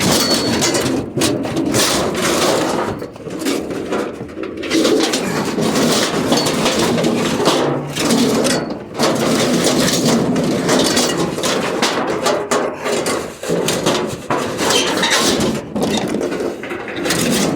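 A refrigerator being scraped and dragged as it is turned: continuous rough scraping and rumbling, broken by brief pauses.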